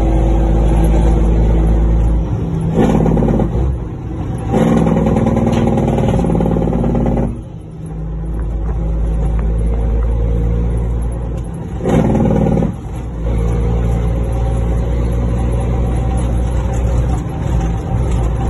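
Cummins N14 diesel engine of a heavy truck pulling under load, heard from inside the cab. Its note drops away for a moment about seven and a half seconds in, as for a gear change, then builds again.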